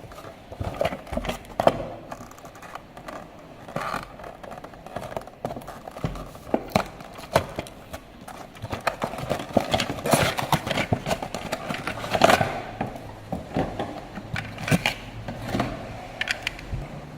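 Irregular clatter of knocks, clicks and scrapes from hard objects, with a louder cluster of knocks about ten to twelve seconds in.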